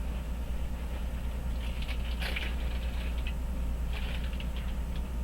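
Small tools being rummaged through, with light scattered clicks and rustles and a cluster of them around two and four seconds in, over a steady low hum.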